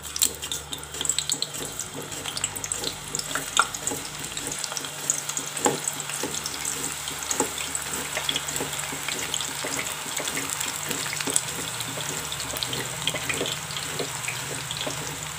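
Hot oil sizzling and crackling steadily as raw banana slices are shaved off a hand slicer straight into the pan to fry, with scattered light ticks of slices dropping in.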